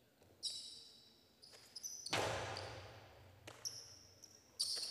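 A jai-alai pelota hits the fronton wall about two seconds in with one sharp crack that echoes through the hall. Short high squeaks, from the players' shoes on the court, come before and after it.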